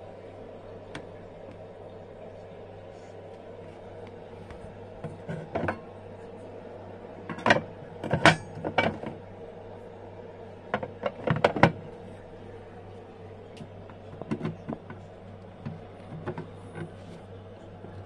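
Handling noise: several clusters of short knocks and clicks, the loudest a little under halfway through, over a steady low hum.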